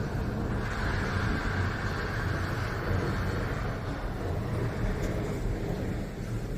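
Lift car running in its shaft: a steady low rumble with a rushing hiss that swells about half a second in and eases after a few seconds.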